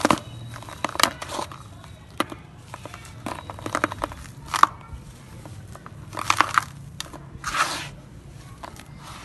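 Hands crushing and crumbling dry, dusty grey sand-cement: irregular crunchy, crackling squeezes, with clusters of sharp crunches every second or so.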